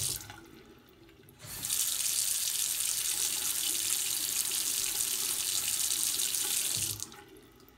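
Tap water running steadily into a bathroom sink and swirling around the drain. It drops away for about a second just after the start and again near the end.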